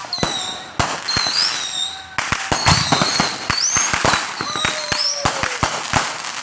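Fireworks going off: a rapid, irregular string of sharp bangs and crackles, with high-pitched whistles rising and falling over them.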